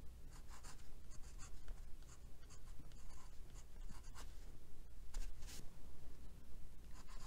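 Glass dip pen nib scratching across heavily textured watercolor paper as letters are written: short scratchy strokes that start and stop with each letter.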